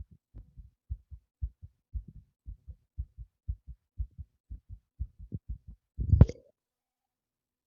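A person's heart beating fast, each beat a low double thud (lub-dub), about two beats a second. About six seconds in a loud, brief rustling bump, the loudest sound here, covers the beats, and they are not heard after it.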